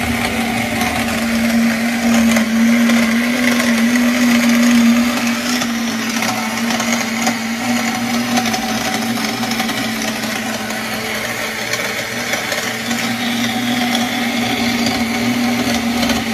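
Countertop blender running steadily, its motor churning ice and frozen strawberries into a frozen drink, a little louder in the first few seconds.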